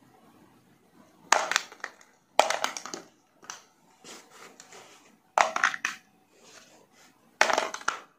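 Repeated bursts of clattering: small hard pieces rattling against plastic, with four loud bursts and a few softer ones between them.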